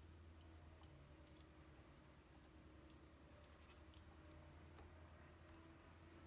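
Near silence with faint, irregular small clicks from a tiny screw and screwdriver being worked into the plastic base of a gear lever.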